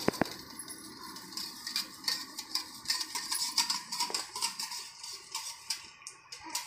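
Eggs being beaten by hand in a stainless steel bowl: a utensil rapidly clinking and scraping against the metal, with a few sharper knocks right at the start.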